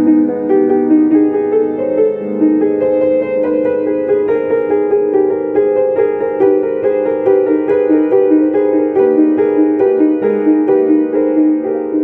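Instrumental music: a keyboard playing a steady flow of sustained notes and chords at an even pace.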